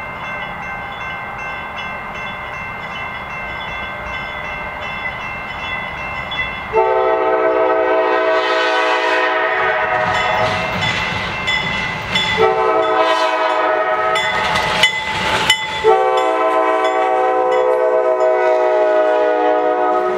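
Approaching CSX diesel freight locomotives running louder as they near. The lead GE B20-8 then sounds its horn chord three times: a long blast about a third of the way in, a shorter one, and a long blast held as the locomotives pass.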